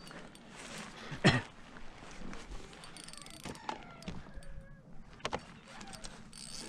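Fishing reel being cranked in short spells to bring in a hooked fish that is still fighting, with a few sharp knocks on the kayak's plastic hull. The loudest knock comes about a second in.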